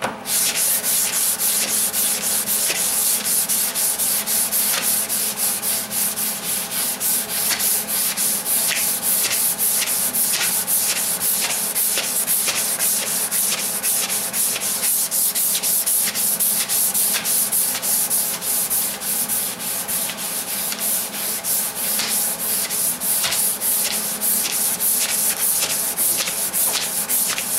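Sandpaper on a flexible sanding block being rubbed by hand over a primed steel fender, in quick, even back-and-forth strokes that keep a steady rhythm throughout.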